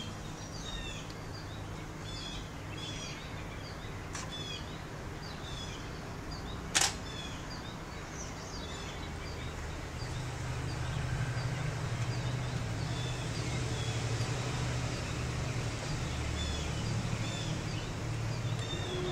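Small birds chirping in the background: short, high chirps repeated every second or so. A single sharp click about seven seconds in is the loudest sound, and a low hum grows louder from about ten seconds in.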